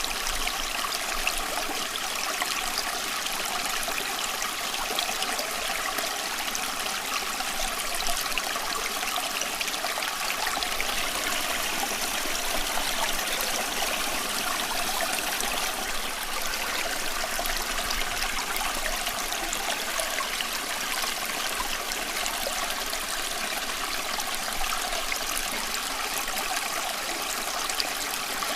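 Running water flowing steadily, an even rushing hiss with no pauses or separate splashes.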